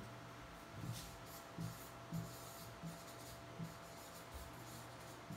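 Stylus tapping and scratching on an interactive whiteboard screen as words are written, a few faint soft strokes spaced about a second apart over a steady low hum.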